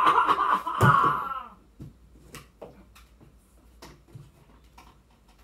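A man's loud, drawn-out shout in a gruff villain voice for about a second and a half, the puppet giant's bellow. Then only faint scattered clicks and small rustles.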